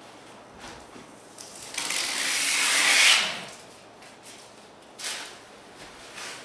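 Adhesive being peeled away from a peel-and-stick backdrop: one long ripping sound about two seconds in that swells for over a second and then fades. A shorter rustle follows about five seconds in.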